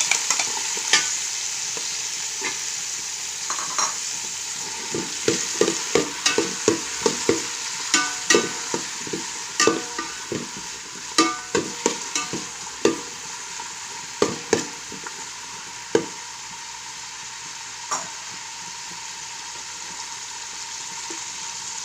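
Chopped potato frying with garlic, spring onion and celery in hot oil, a steady sizzle. From about five seconds in to about sixteen seconds a spatula knocks and scrapes against the pan in quick strokes, then knocks once more a couple of seconds later.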